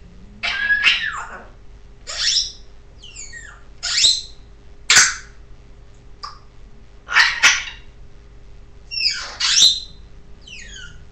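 Pet parrot squawking: about ten short, harsh calls at irregular intervals, a few of them falling whistled notes.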